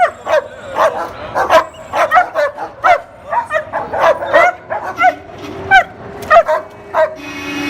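A dog barking over and over in quick, short barks, about two or three a second.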